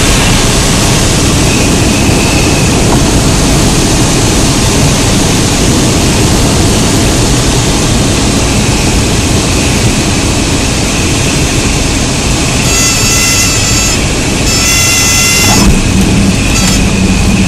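Steady engine, propeller and wind noise inside the cabin of a light single-engine propeller plane during a slip on short final and the flare. Near the end a high, steady warning tone sounds twice, about a second each, typical of the stall warning horn in the flare, and a brief thump follows, consistent with touchdown.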